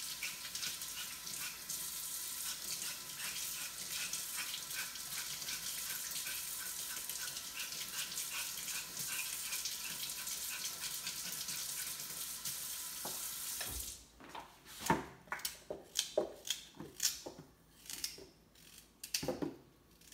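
Kitchen tap running steadily as carrots are washed under it; the water shuts off about 14 seconds in. A run of light knocks and clatters follows as the carrots are handled and dropped into a container.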